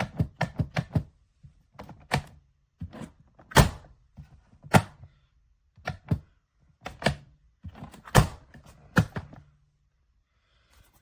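Knocks and clunks from a small fire-resistant safe being handled: a quick run of about five knocks in the first second, then single thunks roughly every second, stopping near the end.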